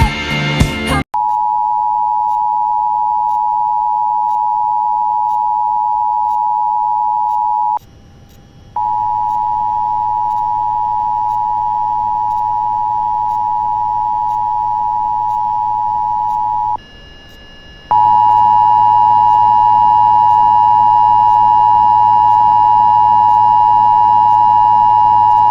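Emergency Alert System attention signal: a steady, loud two-note alarm tone. It sounds in three long stretches, broken twice by a gap of about a second. It opens with a brief, loud burst of mixed noise.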